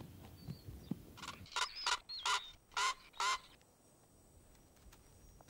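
Male northern black korhaan giving its harsh, raucous croaking call: about six loud calls in quick succession over some two seconds, stopping about two-thirds of the way through.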